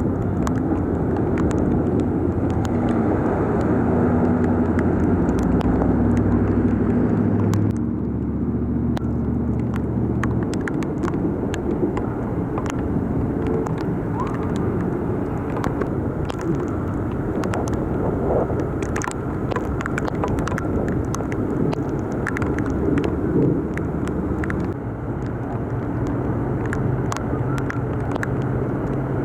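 A car engine running, its tone dropping about eight seconds in, under the steady hiss of torrential rain, with many sharp ticks of drops striking close by.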